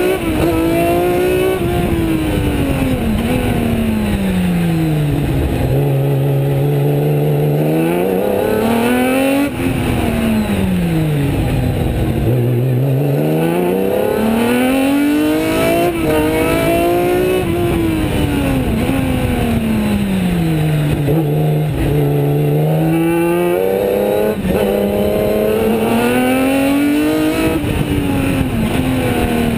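Osella PA 20 S sports-prototype race car engine heard from the open cockpit at racing speed. The revs fall away and hold low several times, then climb hard again, with quick breaks in the note as gears change, over steady wind and road noise.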